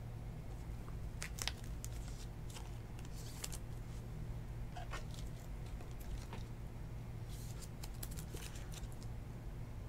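A thin plastic card sleeve crinkling and scratching as a trading card is handled and slid into it: short scratchy rustles in two spells a few seconds apart, over a steady low hum.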